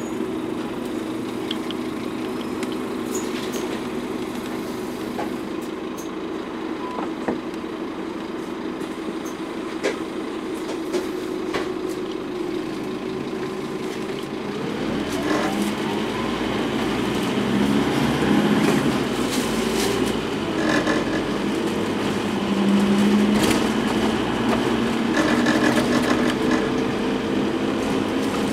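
Scania N230UD double-decker bus's five-cylinder diesel engine heard from inside the passenger saloon, running steadily at first, then from about halfway through accelerating, its pitch rising and the sound growing louder. Faint rattles from the bus body now and then.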